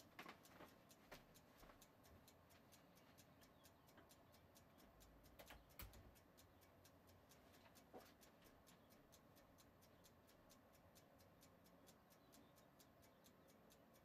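Kitchen timer ticking faintly and steadily, the countdown running on a batch of cookies, with a few soft knocks, the loudest about six seconds in.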